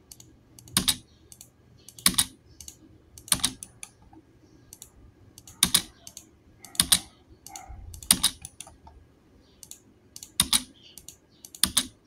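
Computer keyboard and mouse being tapped and clicked: about eight sharp key taps, roughly one every second and a quarter, each followed by one or two lighter clicks, as the spacebar repeats a command and the mouse picks objects.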